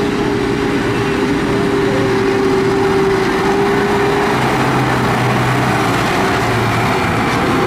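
Massey Ferguson tractor's diesel engine running steadily as it drives across soft dirt. A high steady whine gives way about four seconds in to a lower hum.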